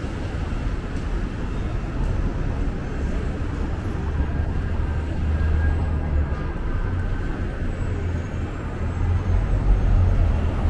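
City street traffic noise: a steady low rumble of vehicle engines, swelling around the middle and again near the end.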